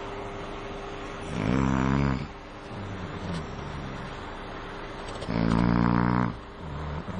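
A man snoring loudly: two deep, drawn-out snores about four seconds apart, each lasting about a second, with a quieter steady sound between them.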